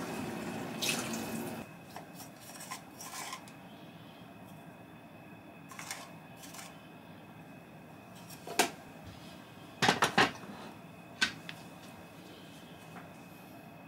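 Tap water runs briefly and stops about a second and a half in, then a spoon and plastic container give a dozen scattered clinks and knocks against a wok as cooked rice is spooned in.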